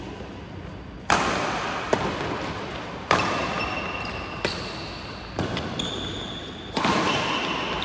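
Badminton rackets hitting a shuttlecock in a fast doubles rally: about seven sharp cracks, a second or so apart, each ringing on in a large echoing hall.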